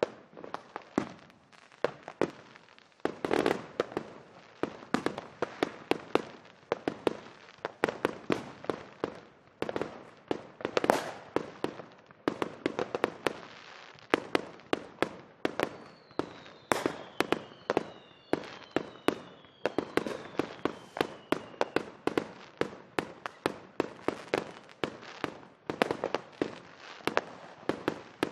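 Fireworks going off in a dense, irregular volley of sharp bangs and pops. Several whistling fireworks glide downward in pitch about two-thirds of the way through.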